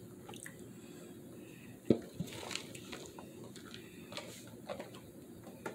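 Quiet rustling and light scattered ticks as shredded cheese is sprinkled by hand over tortillas in an aluminium foil pan, with one sharper click about two seconds in.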